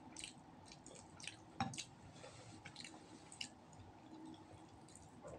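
Quiet eating sounds: chewing of roast duck with scattered small wet smacks and clicks as the meat is pulled apart by hand. A single louder knock comes about a second and a half in.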